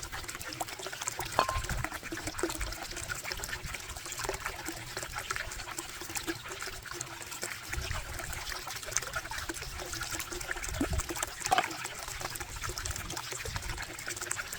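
Water trickling steadily, with many small irregular clicks and splashes.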